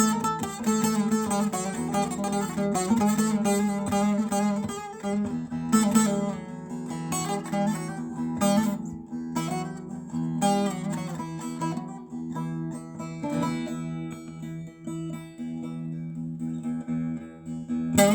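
Background music led by a plucked string instrument, with melodic lines over a steady low drone, quieter for a while around the middle and in the second half.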